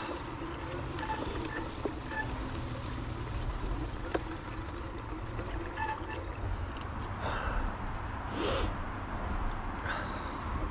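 Bike tyres rolling slowly over a dirt trail, with wind rumbling on the microphone and a few sharp knocks from the bike over rough ground. A brief hiss comes about eight seconds in.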